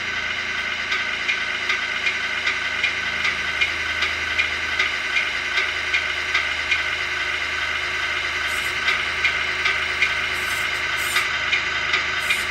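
Tamiya MFC-01 sound unit in an RC semi-truck playing its recorded diesel engine idle: a steady running sound with a regular tick about two and a half times a second.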